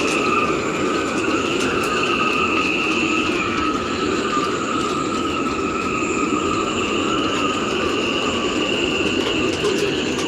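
Gale-force wind howling through the rigging of moored yachts: a steady rush of wind under sustained high whistling tones that waver slowly in pitch.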